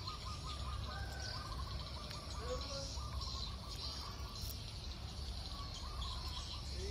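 Outdoor ambience: small birds chirping in short repeated trills, over a steady high insect buzz and a low rumble.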